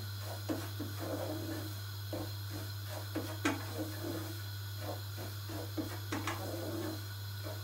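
A wooden spoon stirring semolina as it roasts in a pot, making irregular scrapes and light knocks against the pot, with one sharper knock about midway. A steady low hum runs underneath.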